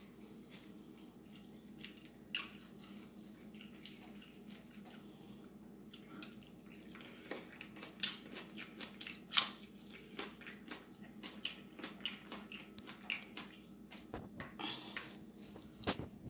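Eating by hand: short wet smacks and clicks of chewing, with soft squishes of fingers mixing puttu into fish curry. Sparse at first, then busier from about halfway, over a faint steady hum.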